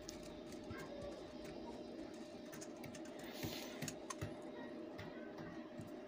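Faint clicks and light scraping of a steel spoon scooping wet plaster of Paris paste from a metal bowl, over a faint steady hum.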